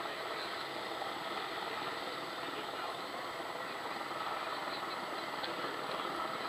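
Police escort motorcycle's engine running at low revs as it rolls slowly through a turn: a steady engine hum.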